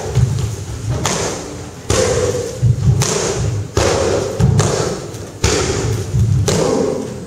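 Repeated, irregular thuds of gloved punches and kicks landing on heavy punching bags, several bags being hit at once in a sports hall, with a few sharper, louder strikes among them.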